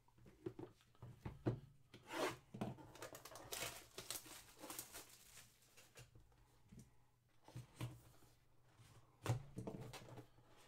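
A sealed cardboard trading-card box being handled and torn open: irregular rustling, rubbing and tearing of cardboard and its tape seals, with a sharp knock about nine seconds in.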